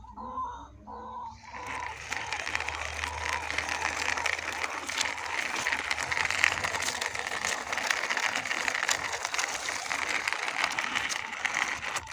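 Plastic toy vehicle pushed along by hand, its wheels giving a continuous fine rattling clatter that sets in about a second and a half in.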